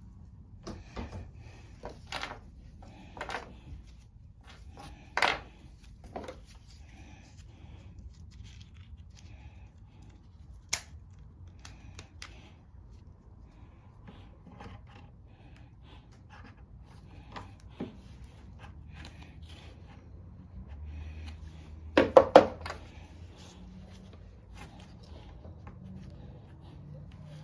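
Scattered small clicks and taps of hand work on a lawn mower's fuel line while an inline fuel shut-off valve is fitted, with a quick run of sharper clicks about three-quarters of the way through.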